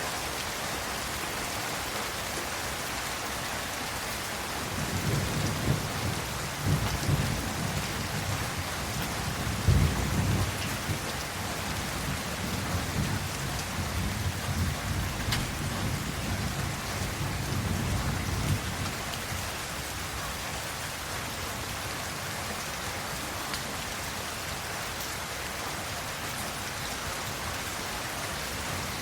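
Steady rain falling, with a long rolling rumble of thunder that starts about five seconds in, swells to its loudest near ten seconds, and dies away at about nineteen seconds.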